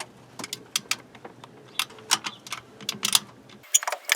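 Irregular sharp metallic clicks and taps, several a second, from hand tools and metal parts being worked under a car during removal of its power transfer unit. A low background rumble cuts off suddenly near the end.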